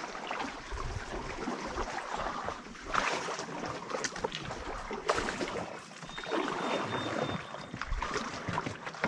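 Canoe paddles stroking and splashing through a shallow creek, water swishing along the hull, with a few sharper strokes about three, four and five seconds in.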